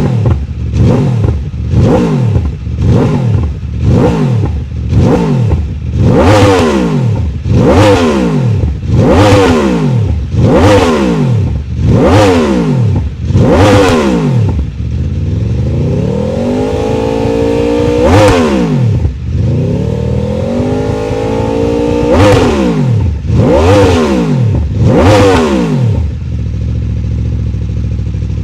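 Aprilia RSV4's V4 engine free-revving through an SC-Project S1 titanium slip-on exhaust: about a dozen quick throttle blips, then a longer rev held at two steps, three more blips, and settling to a steady idle near the end.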